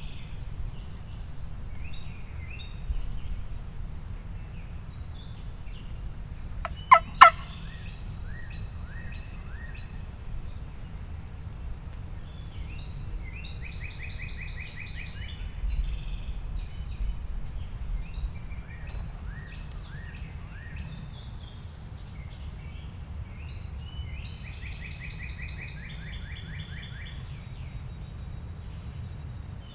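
A wild turkey gobble, short and loud about seven seconds in, over steady songbird chirps and trills and a low wind rumble.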